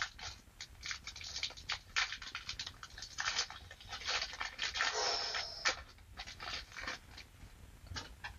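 Foil wrapper of a Pokémon booster pack being torn open and crinkled by hand: a dense run of crackles and rips that thins out after about seven seconds.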